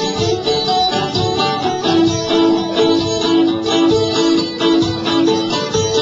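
Live folk-punk band playing an instrumental break between verses, with no singing; a long held note sounds through the middle.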